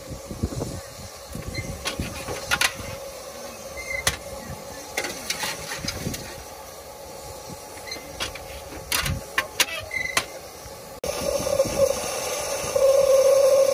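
Miniature steam locomotive standing still: scattered metal clanks and knocks around the footplate over a faint steady hiss, then, from about two-thirds of the way in, a steady louder steam hiss with a held tone that grows loudest near the end.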